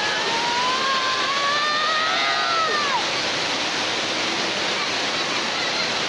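Steady rush of water pouring down a dam's sloped concrete spillway. Over it, for about the first three seconds, a person's long drawn-out call that rises slightly and drops in pitch at its end.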